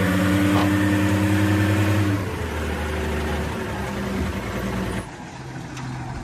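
Heavy diesel engine of a Caterpillar 966F wheel loader running at a steady speed. It eases off a little about two seconds in and drops away suddenly near five seconds, leaving a quieter engine sound.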